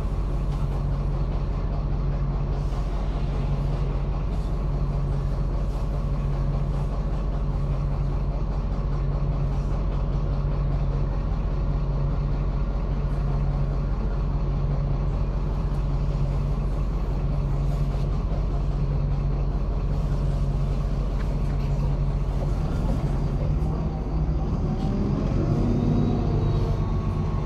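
MAZ-103 city bus diesel engine running steadily with a low hum that slowly pulses. Near the end the engine note rises and then falls in pitch as it revs.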